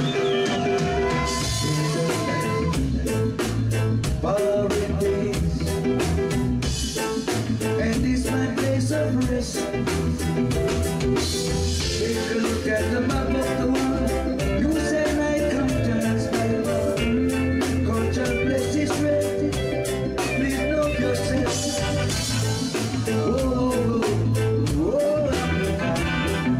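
Live reggae band playing: a male singer's voice over electric guitar and a drum kit, with a steady cymbal beat and heavy low end.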